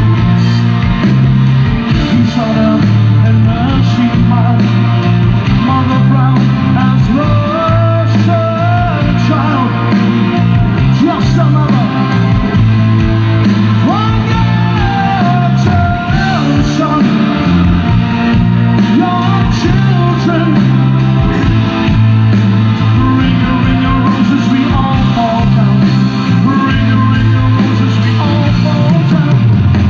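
A live progressive rock band playing loudly, with drums, bass, keyboards and electric guitars, heard from among the audience.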